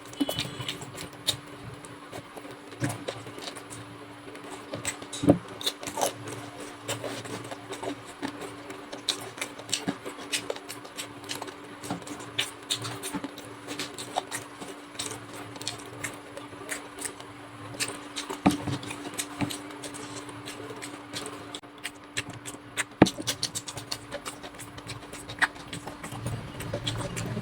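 Close-miked eating sounds of chicken curry and rice being eaten: chewing, lip smacks and many irregular mouth clicks, over a faint steady hum.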